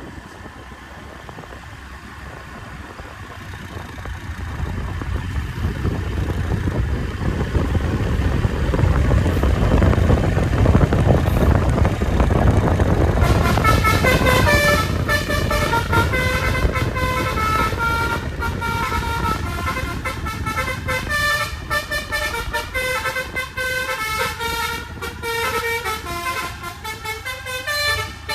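A bus's engine and road noise swell as it draws close and pass their loudest near the middle. About halfway through, the ALS 147 bus's Basuri V3 telolet horn starts sounding a tune of changing notes. It keeps playing to the end.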